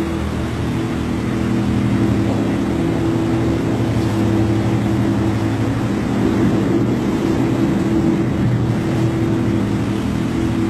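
Steady low hum made of several held tones over a wash of noise.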